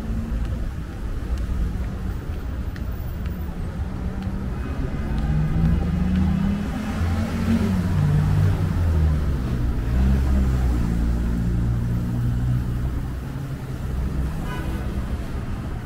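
Busy city road traffic: car engines running and passing close by, their engine notes rising and falling. It gets louder for several seconds in the middle.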